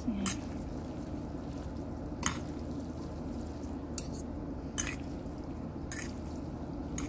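Metal utensil mixing saucy instant noodles on a plate: wet stirring with about six sharp clinks of metal against the plate, a second or two apart, over a steady low hum.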